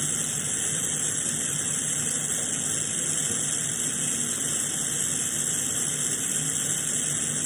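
Lampworking bench torch burning with an open flame, a steady hiss with a low rush under it.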